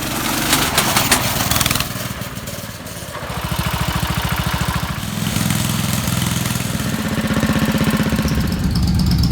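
Small gasoline engine running, its speed dropping off about two seconds in and picking back up a second later.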